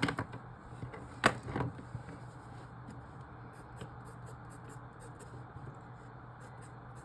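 Writing on paper in a puzzle book's grid: short, faint scratchy pen strokes, with a sharp tap about a second in.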